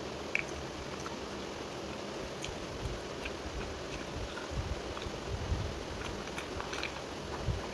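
Eating sounds: fingers mixing and squishing rice with curry, and chewing, heard as scattered small wet clicks and soft low thuds over a steady hiss.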